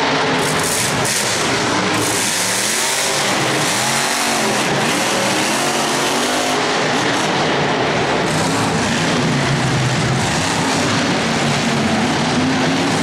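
Monster truck's supercharged V8 engine revving up and down several times, then running at high revs.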